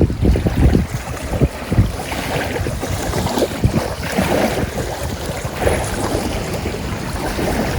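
Strong wind buffeting the microphone in uneven gusts, over choppy river water lapping.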